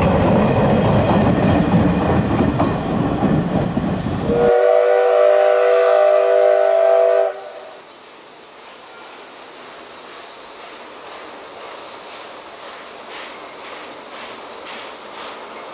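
Steam train passing with loud wheel clatter; after a sudden cut, the steam locomotive's whistle sounds one chord of several tones for about three seconds and stops abruptly, leaving a steady high hiss.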